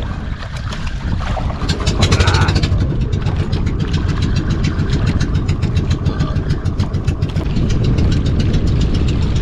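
Small fishing boat's engine running with a rapid, even firing beat. It gets louder about two seconds in as the boat is moved ahead a little.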